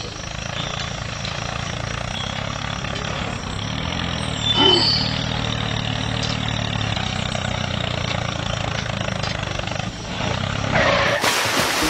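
Small motor of a toy tractor running steadily with a low hum as it drags a cultivator through sand. A few short high chirps come in about halfway, and a loud rushing noise starts near the end.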